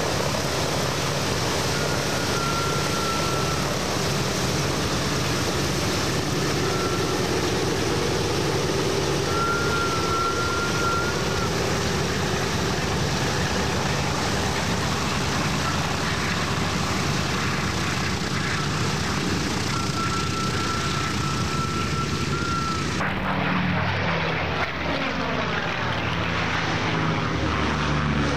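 Piston radial engines and propellers of Boeing B-17G Flying Fortress bombers running steadily as they fly past. Near the end the sound changes to a sweeping, phasing rush as an aircraft passes close.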